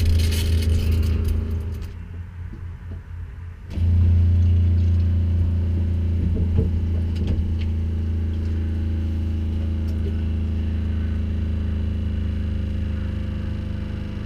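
RV 12-volt water pump running with a steady low hum, its pulsing damped by a newly fitted SEAFLO accumulator tank. Clicks and rustling from a hand working the pump's fitting come early on; the hum drops away about two seconds in and comes back abruptly a second and a half later.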